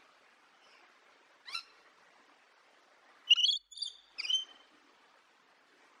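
Rainbow lorikeet calling: one short high call about a second and a half in, then a quick run of three loud, sharp calls a little past the middle, over a faint steady hiss.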